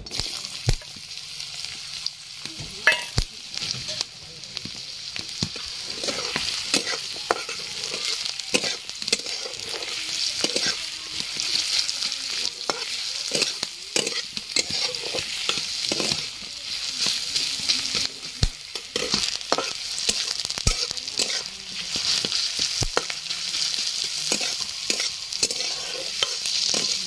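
Sliced onions sizzling in hot oil in a metal kadhai from the moment they drop in, while a metal spatula stirs them, scraping and clicking against the pan many times.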